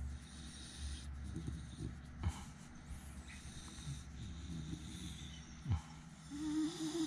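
Beagle breathing through her nose while her cheek and chin are rubbed by hand, with two short thumps. Near the end she gives a brief, low-pitched whine.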